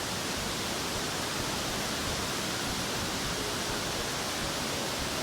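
Kakabeka Falls' water pouring over the drop, heard as a steady, even rushing noise that does not change.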